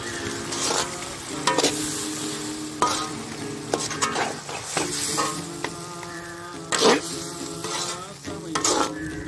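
Mutton and spiced masala sizzling in hot oil in a large iron kadai, stirred with a perforated metal skimmer ladle that scrapes and knocks against the pan several times. A steady buzzing hum of several tones runs underneath.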